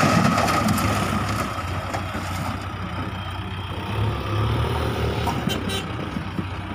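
Diesel engines of a Swaraj 744 FE tractor and a JCB 3DX backhoe loader running together with a steady low throb. The engine note swells briefly about four seconds in.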